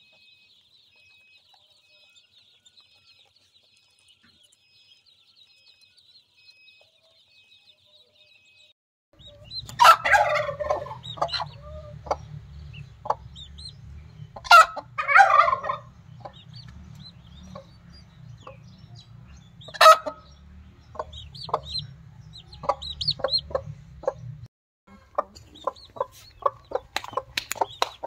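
Mother hen clucking with her chicks peeping around her, after the first nine seconds or so, which are almost quiet. A few loud calls come about ten, fifteen and twenty seconds in, with many short, faint high calls in between, over a low steady rumble that stops about twenty-four seconds in.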